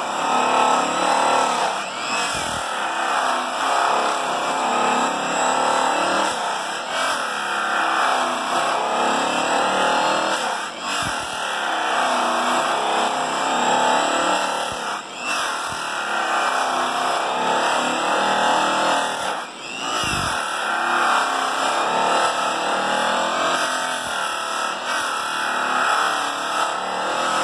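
Electric polisher with a buffing wheel running continuously against an aluminum truck drive wheel during the first cutting pass, its pitch wavering as the pressure on the wheel changes, with a few brief dips.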